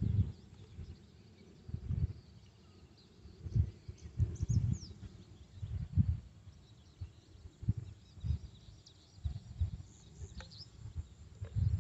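Irregular low rumbles from wind gusting across the microphone, with faint bird chirps high above them.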